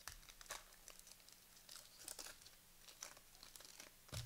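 Faint, irregular crinkling and rustling of trading-card pack wrappers being handled, with a soft thump about four seconds in.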